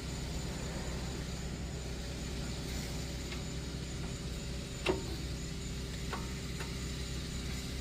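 Steady low hum with a few short metallic clicks, the sharpest about five seconds in, as the rear brake caliper is lowered back over the new pads.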